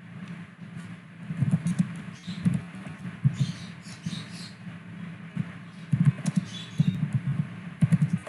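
Irregular clicks and taps of a computer keyboard and mouse being worked, coming in short clusters.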